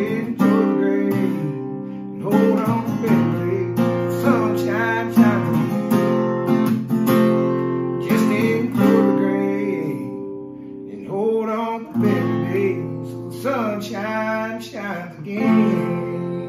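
Cutaway acoustic guitar strummed, with a man's voice singing over it. The playing thins out briefly about ten seconds in, then picks up again.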